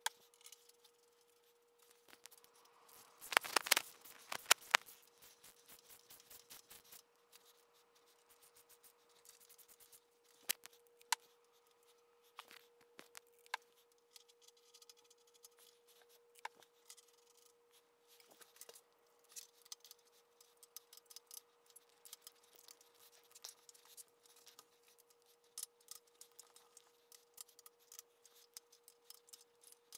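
Small metal clicks and clinks of hand tools and bolts being fitted onto a cast-iron milling machine head, with a loud run of clinks about three to four seconds in. A steady faint hum runs underneath.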